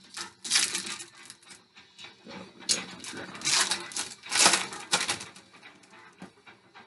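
Foil trading-card pack wrapper crinkling and cards rustling as a hockey card pack is torn open and handled, in a series of irregular crackling bursts with the loudest about halfway through.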